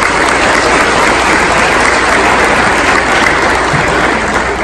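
Audience applauding, loud and steady, beginning to fade near the end.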